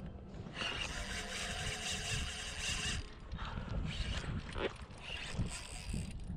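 Mechanical whirring with clicking from the kayak's fishing gear, from about half a second to three seconds in, followed by irregular low knocks.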